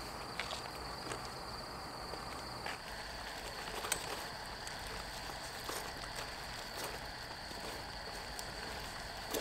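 Quiet outdoor ambience: a steady hiss with a thin, high, unbroken tone. A few faint clicks come from the plastic knife and fork cutting meat on aluminium foil.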